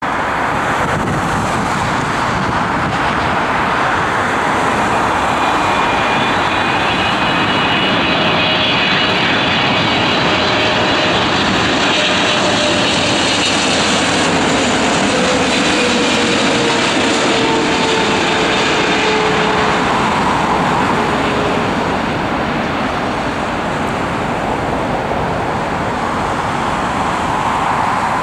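Boeing 777-300 airliner's twin jet engines on final approach, passing low overhead: a loud steady rush with whining tones that are strongest as it goes over, and a lower tone that drops in pitch as it passes.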